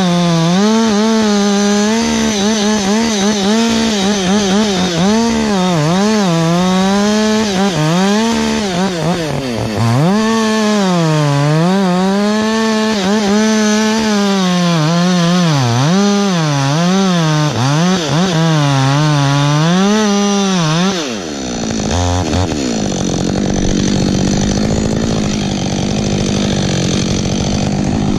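Two-stroke chainsaw running near full throttle while cutting wood, its engine pitch repeatedly dipping and recovering as the chain loads up in the cut. About 21 seconds in the revs fall away, and a fainter, steadier engine sound continues.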